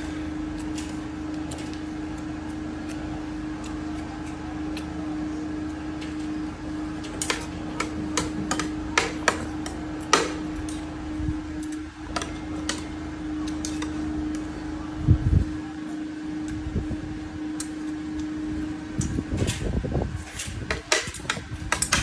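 A steady electrical hum, like a running fan, under scattered clicks and knocks of dishes and cutlery, with a short burst of low thuds about two-thirds of the way in.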